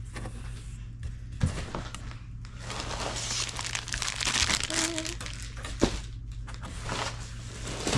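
Plastic packaging crinkling and rustling as items are handled and unwrapped, with scattered light clicks.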